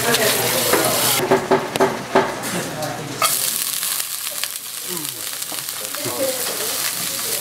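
Soybean sprouts sizzling as they are stir-fried over high heat in a frying pan, a steady hiss with a few sharp clicks about two seconds in.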